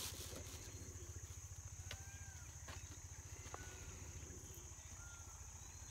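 Outdoor bush ambience: a constant high insect drone over a low steady hum, with a few short bird chirps about two, three and a half and five seconds in.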